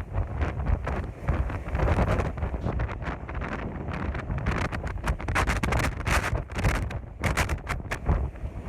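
Storm-force wind gusting and buffeting the microphone with a heavy rumble. A run of sharp crackles and clicks comes through the gusts, thickest near the end.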